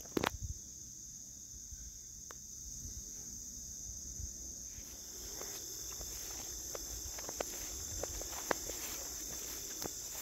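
Steady high-pitched chorus of insects chirping. A sharp knock comes just after the start, and scattered light footstep clicks follow in the second half.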